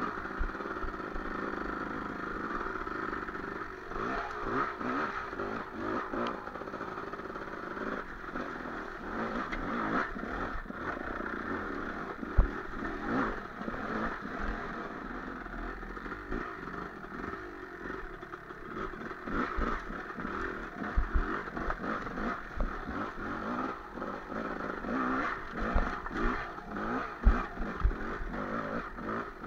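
Enduro dirt bike engine running and revving up and down while riding a rocky trail, with the bike clattering over stones and a few sharp thumps from bumps.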